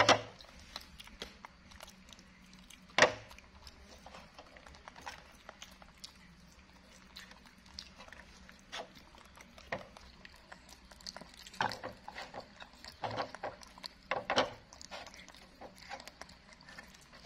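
Two pet monkeys eating steamed pumpkin: scattered small clicks and smacks, with one sharp knock about three seconds in and a busier run of short sounds a little after the middle.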